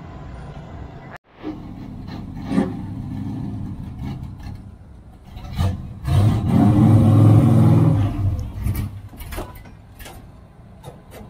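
Race truck's engine running and then revving hard for about two seconds as the truck climbs the trailer ramp, before dropping back, with a few knocks and clunks near the end.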